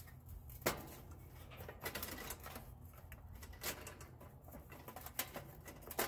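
Irregular light clicks and taps of small metal grill parts being handled and fitted by hand on a gas grill's valve manifold, the sharpest click about two-thirds of a second in.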